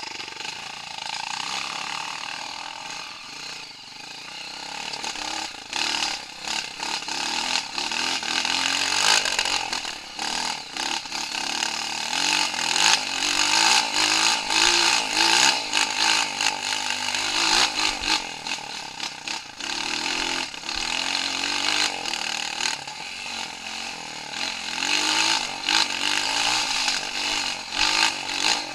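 Off-road trail motorcycle engine running under way, its pitch rising and falling repeatedly as the throttle is worked.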